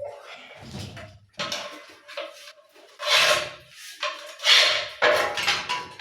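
Ceramic tiles clattering and clinking against each other as they are handled, in several irregular bursts, loudest past the middle.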